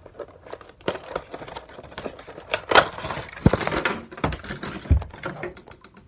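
A cardboard Funko Pop box being opened and the vinyl figure pulled out of its plastic tray: rustling and crinkling of cardboard and plastic, with many small clicks and a couple of low thuds. The rustling is loudest about three seconds in.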